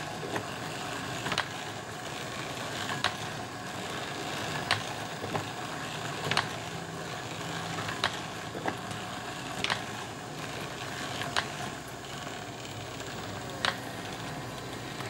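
Range ball striper running: its roller chains, driven by a variable-speed DC motor, make a steady clattering noise, with a sharp click about every second and a half.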